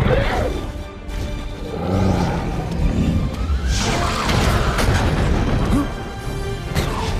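Film score with sudden booms and crashes of a dragon battle mixed in.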